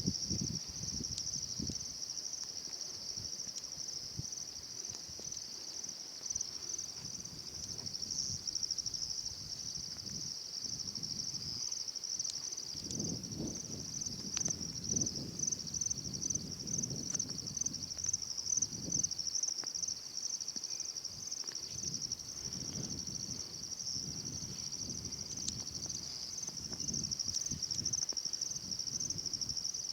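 Steady, high-pitched insect chorus with a fast pulsing trill that continues throughout. Low rumbling comes and goes underneath, strongest around the middle.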